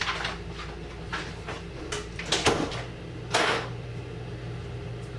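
Several short knocks and swishes, like a cupboard or door being moved, over a steady low hum.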